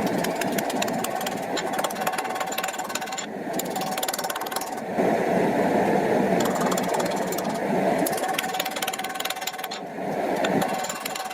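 Forging of a bar of 1095 high-carbon steel: rapid, machine-like hammering over a steady rushing noise. The sound cuts off and resumes abruptly about three, five and ten seconds in.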